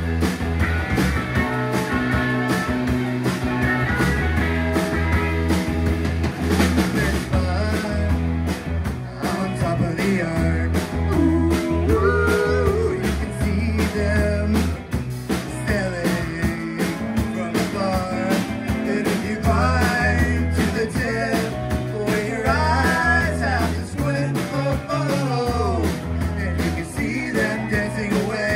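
Live rock band playing a song on electric guitars, bass and drum kit, with a steady beat and a lead line that bends up and down in pitch.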